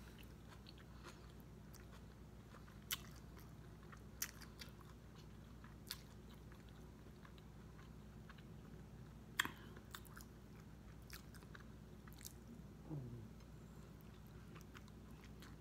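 Faint mouth sounds of someone eating a soft chili cheese coney dog: wet chewing with scattered sharp clicks and smacks, the loudest about nine seconds in. A brief low hum comes from the eater about three-quarters of the way through.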